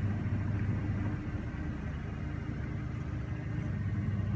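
Steady low mechanical hum, like an idling engine.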